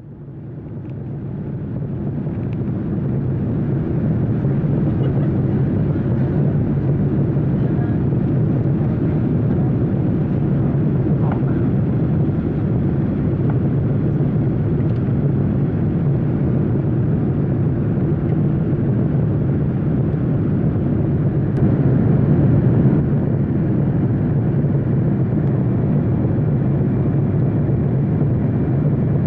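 Steady low drone of a jet airliner heard from inside, fading in over the first few seconds and then holding level, with a slight swell about 22 seconds in.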